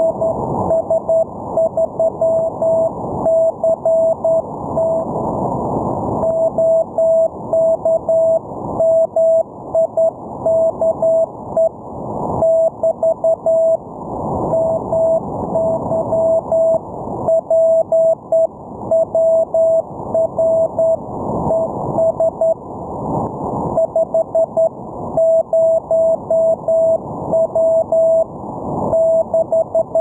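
Morse code (CW) signal received on a ham radio receiver: a single tone keyed on and off in dots and dashes over band noise and static that swells and fades. The sending station is giving his transmitter power as 50 watts.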